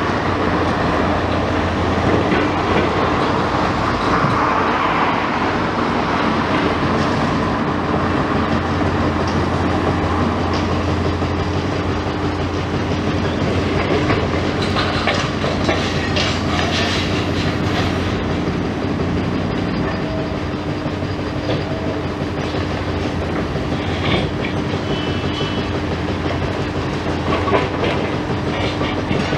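High-reach demolition excavator at work: its diesel engine runs steadily under irregular clattering and crunching as concrete and debris are broken and fall.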